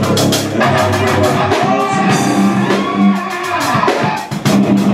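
Live rock band playing loudly: electric guitars and bass over a drum kit keeping a fast, steady beat.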